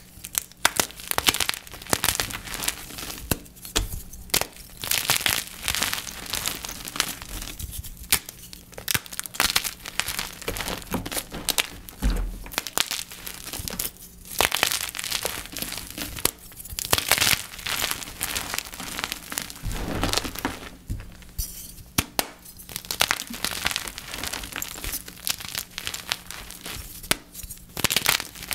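Dip-dyed gym chalk blocks crushed by hand in bouts of a few seconds, with dense, crisp crunching and crumbling and short pauses between bouts.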